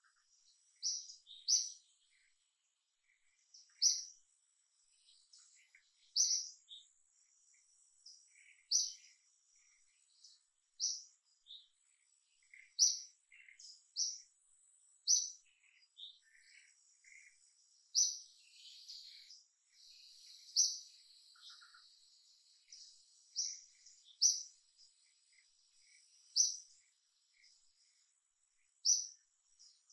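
Short, high bird chirps repeating every second or two, over a thin, steady high insect trill.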